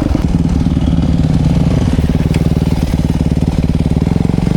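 Dirt bike engine running at low revs with a fast, even putter.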